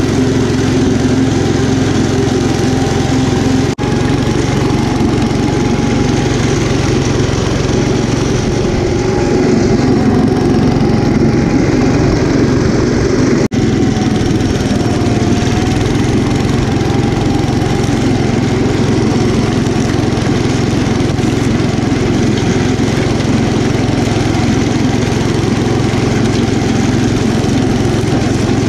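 Kohler K241 10 hp single-cylinder engine of a 1972 Gravely Commercial 10A walk-behind tractor running steadily under load while its snowblower attachment throws snow. The drone briefly drops out twice.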